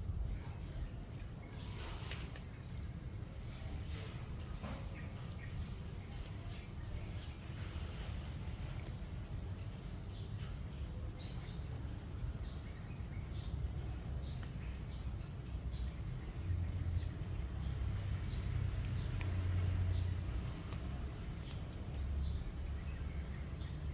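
Birds chirping: short, high chirps, many of them rising in pitch, coming often in the first half and thinning out later, over a steady low rumble.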